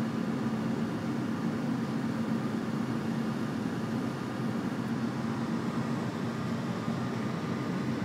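Steady road and engine noise inside a moving car's cabin, with a constant low hum.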